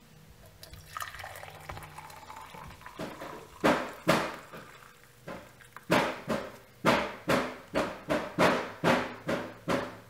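Coffee pouring from a French press into a tumbler, a steady stream whose pitch rises slowly as the cup fills. In the second half the pour breaks into rhythmic glugs, about two or three a second.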